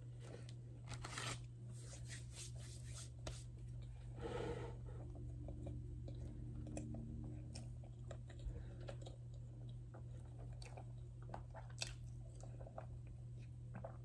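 Close-up chewing of a breakfast croissant sandwich: soft crunching with many small wet mouth clicks, over a steady low hum.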